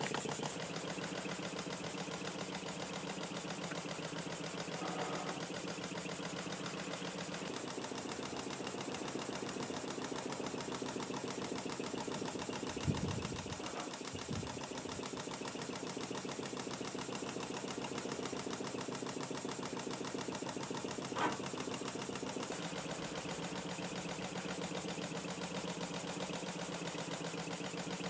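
Small model single-acting steam mill engine running fast, with rapid even exhaust beats and a steady hiss, driving an aluminium model oil pump jack by belt. Its walking beam and linkages work along with the engine, with a short low knock about halfway through and a brief click later.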